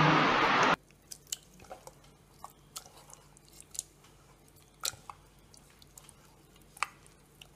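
A hand kneading and squishing thick rice appam batter in a steel bowl: faint, scattered wet squelches and soft clicks. It opens with a loud rushing noise that cuts off abruptly under a second in.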